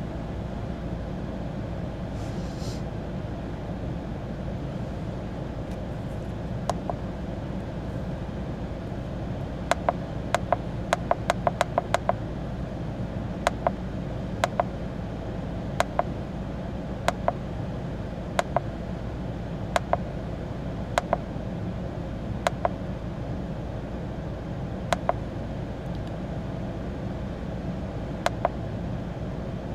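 VW Fox engine idling steadily, heard from inside the cabin. Over it come a series of short sharp clicks from the handheld scan tool's buttons as the live data list is scrolled, a quick run of them about ten seconds in and then single clicks every second or so.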